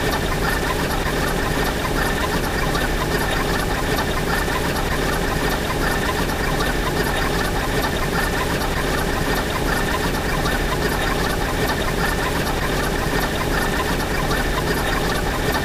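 A dense, steady wall of noise from many video soundtracks layered over one another into one blur, with a fast, even ticking on top.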